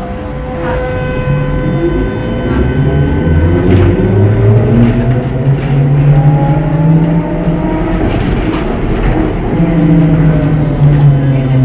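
Ikarus 280T trolleybus's electric traction motor whining as the bus pulls away, the pitch rising steadily through several seconds of acceleration, then falling again as it slows near the end, over a low running hum.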